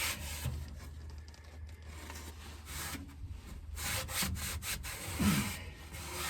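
Rubbing and scraping strokes of hand cleaning on an old welding generator, coming in uneven bursts with a few sharp clicks, over a faint steady low hum.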